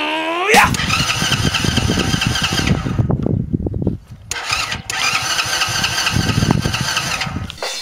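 Alpha moped's small four-stroke engine turning over and running in two stretches, dropping out for about a second about three seconds in. A short rising tone opens it.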